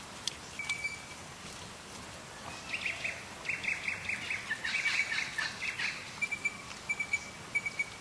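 A bird chirping: a run of quick high notes, then a few short repeated notes near the end.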